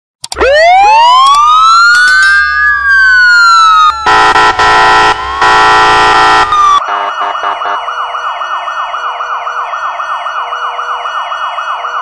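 American police siren: a wail that winds up and slowly falls, then two long horn blasts, then a fast yelp sweeping up and down about four times a second.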